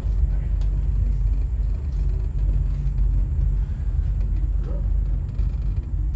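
Steady low rumble inside an aerial tram cabin as it rides along its cables.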